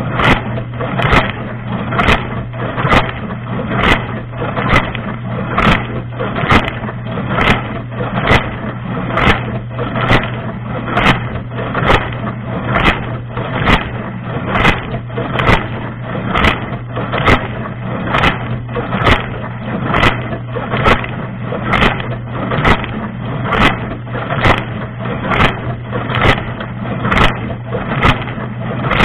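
Inside a running dishwasher: the circulation pump hums steadily while water spray from the rotating spray arm sweeps over the camera and dishes in a regular, rapid rhythm of splashing pulses.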